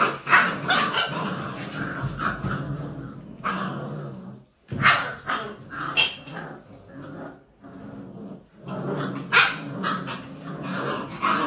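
A litter of puppies about 45 days old barking, yipping and growling over one another as they play-fight and tug at toys. The noise comes in short, overlapping yelps and growls, with brief lulls a little under halfway through and again later.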